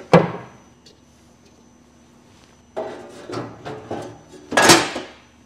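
Metal clanks from a crankshaft grinder's sheet-metal guard being handled: a sharp ringing clank right at the start, a run of rattling knocks about three seconds in, and a second loud ringing clank near the end.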